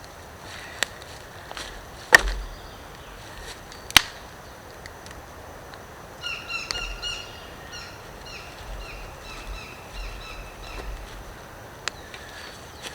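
A few sharp knocks or snaps, the loudest two about two and four seconds in, then a bird calling a quick run of short notes that slide downward, from about halfway through.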